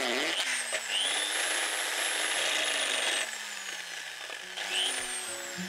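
Electric drill with a masonry bit boring through a terracotta roof tile: a steady grinding with the motor's high whine rising about a second in. The drilling stops after about three seconds and the motor winds down, with a short second burst of the drill near the end.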